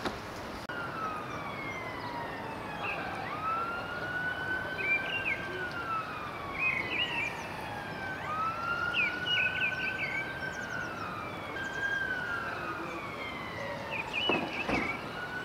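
Emergency vehicle siren in slow wail mode, its pitch rising, holding and falling again over several seconds, cycle after cycle. A brief knock near the end.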